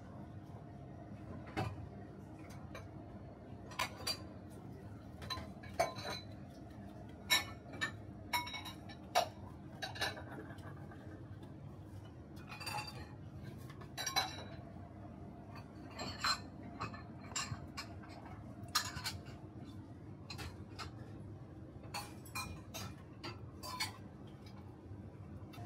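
Scattered light clinks and knocks of stainless steel trays and a mixing bowl as a raw beef patty is dredged in flour and dipped in beaten egg, over a steady low hum.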